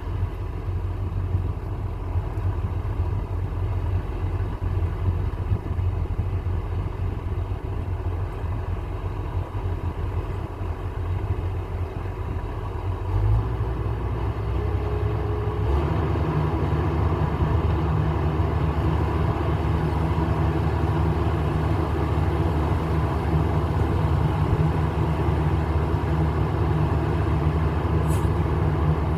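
Case IH 4430 Patriot sprayer's diesel engine running steadily. About 13 and 16 seconds in its note steps up and gets louder.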